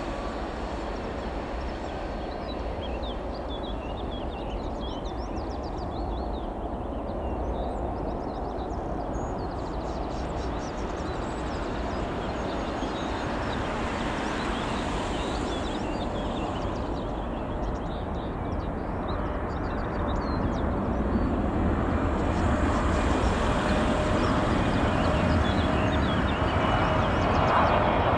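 Jet engine noise of a Boeing 777-300ER on final approach: a steady rumble from its two GE90 turbofans, growing louder as the airliner comes closer.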